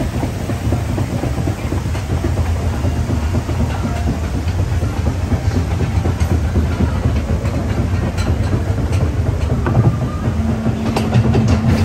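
Steady clattering rumble of a ride boat riding a chain-driven conveyor lift, with sharper clicks and a steady tone joining near the end.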